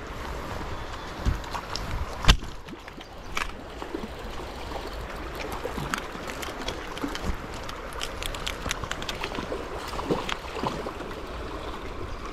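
Steady rush of a fast-flowing stream, with scattered clicks and knocks from fishing gear being handled. The loudest is a sharp knock about two seconds in.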